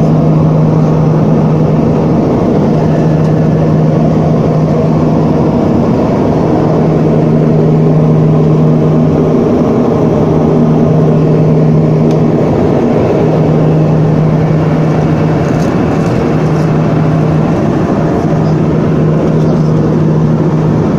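Aircraft engine drone and airflow heard inside the passenger cabin in flight: a loud, steady rush with a low hum that fades out and returns every couple of seconds.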